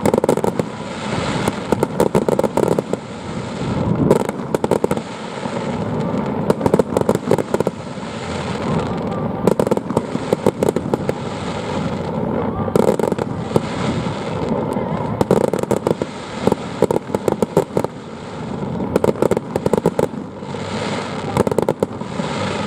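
Fireworks display going off, with clusters of rapid crackling every few seconds over a steady low rumble of bursts.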